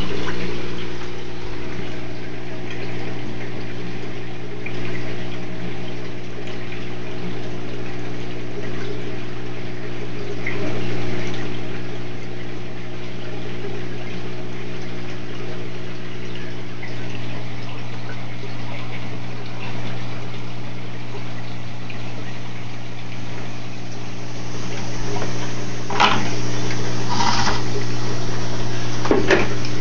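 Reef aquarium equipment running: a steady electrical pump hum under the rush and trickle of circulating water. Near the end the water noise grows louder and a few brief knocks come through.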